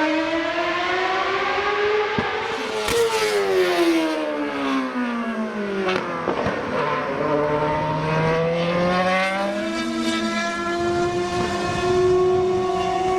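2011 Williams FW33 Formula 1 car's Cosworth V8 engine at racing revs. The pitch rises, then falls steadily for several seconds, with a few sharp cracks as it slows. It then climbs again and holds at a high, steady pitch.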